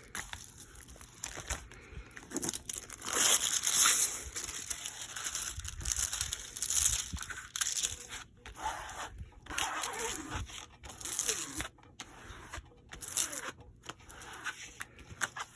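Crinkling and rustling as a soft diamond painting canvas is handled and rolled backwards to flatten it, in uneven swells.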